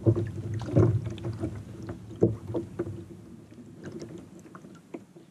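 Scattered light knocks and clicks of handling aboard a kayak as a just-landed speckled trout is held and unhooked, most of them in the first half.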